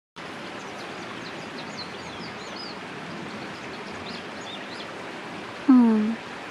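Faint, quick, high chirps of small birds over outdoor ambience. Near the end comes a single loud, low call that falls in pitch and lasts about half a second.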